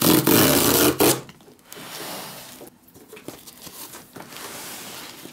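Cardboard tear strip being ripped along a shipping box: a loud tearing sound for about the first second, then quieter scraping and rustling of cardboard under the hands.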